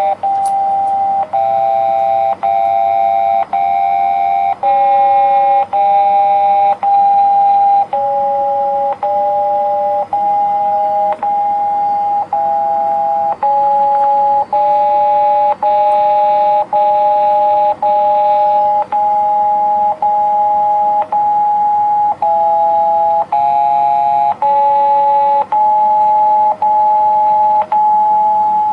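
Japanese municipal disaster-prevention radio (bōsai musen) alert signal: an electronic two-note tone that steps to a new pair of pitches about once a second, each block separated by a brief break, repeating steadily. It is the warning signal that precedes a spoken evacuation-advisory announcement, here sounded as a drill.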